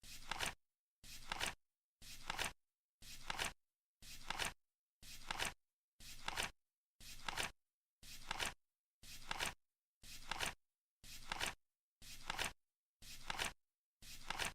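Flip clock timer flipping once a second, about fourteen times: each flip a half-second sound that builds to a sharp click, with dead silence between.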